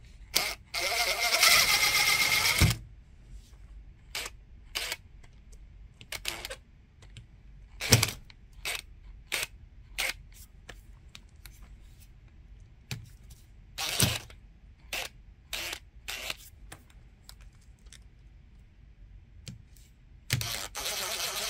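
Cordless drill-driver spinning out a wall receptacle's mounting screws: one run of about two seconds near the start and another near the end, with scattered clicks and knocks of the bit and tool in between.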